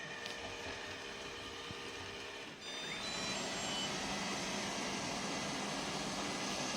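Robot vacuum cleaner running with a steady whir; about two and a half seconds in there is a brief drop, then the suction steps up to a louder, fuller whir, with a few short high tones stepping down as it does.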